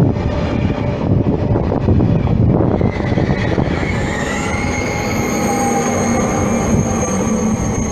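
TGV Duplex trainset rolling slowly past, its wheels rumbling and clicking on the rails. From about four seconds in, as the rear power car comes by, high whining tones and a steady hum join the rumble.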